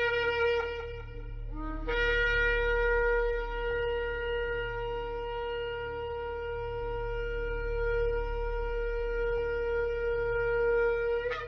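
Shofar (ram's horn) being blown. A blast ends about a second in, a short lower note follows, then one long held blast of about nine seconds rises sharply in pitch just before it stops.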